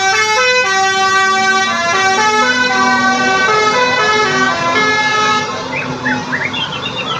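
Bus telolet horn of the Basuri type, a set of musical air horns, playing a quick tune: several horn notes sound together and step from pitch to pitch every fraction of a second. Near the end the horn gets quieter and short sliding high-pitched sounds join in.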